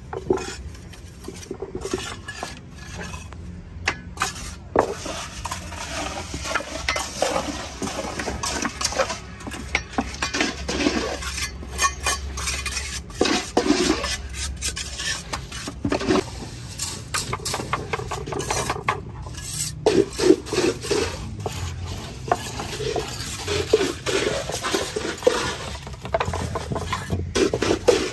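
A metal scoop scraping and clinking as it works wet cement-and-gravel mix into a wooden multi-cavity tile mould, with irregular knocks and gritty scrapes.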